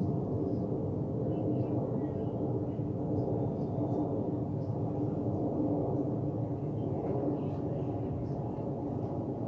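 Jet airliner passing overhead: a steady low engine drone with no sudden changes.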